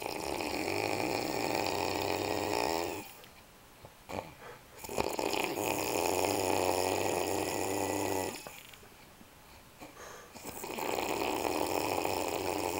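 A man snoring: three long snores of about three seconds each, with quieter breathing between them. He has a head cold and has been drinking beer and absinthe.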